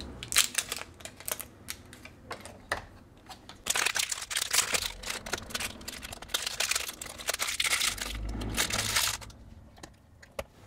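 AA nickel-metal hydride rechargeable batteries being pressed one by one into the plastic battery holder of a Loqed smart lock: a run of sharp clicks, with a denser stretch of clicking and scraping in the middle.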